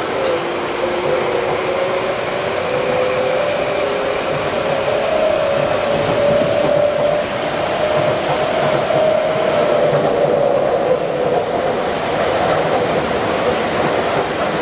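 Tokyu 8500 series train under power, heard from inside the car, with its Hitachi GTO inverter and traction motors whining. The whine rises steadily in pitch as the train picks up speed, levels off, then fades about three-quarters of the way through over steady wheel-and-rail running noise.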